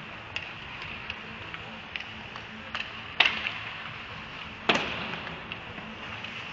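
Ice hockey play: hockey sticks and puck clicking and tapping on the ice, with two loud sharp knocks about three and four and a half seconds in, the second ringing briefly in the rink, over a low steady arena hum.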